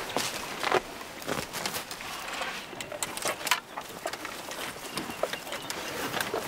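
Elephants browsing on leafy branches: leaves rustling, with scattered sharp snaps and cracks of twigs breaking, the loudest about a second in and about three and a half seconds in.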